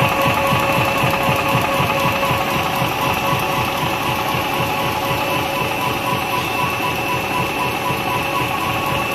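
High-speed rotary die-cutting machine running steadily, label web feeding through its rollers, slitters and rewinders: a constant mechanical whir with a fast, even rattle and a few steady high whines.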